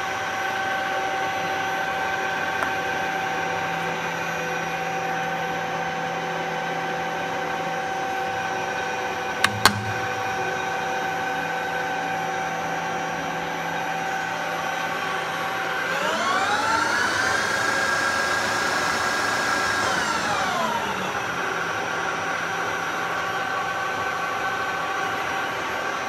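Colchester Triumph 2500 centre lathe running under power with a steady whine from its drive. There are two sharp clicks near the ten-second mark. About sixteen seconds in, a second whine rises in pitch, holds for about four seconds, then falls away.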